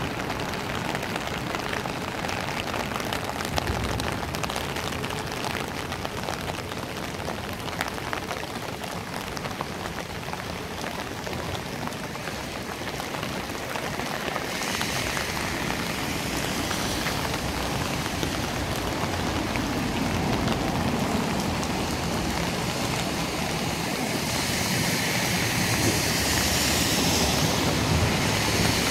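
Steady rain falling, an even hiss that grows louder and brighter about halfway through and again near the end.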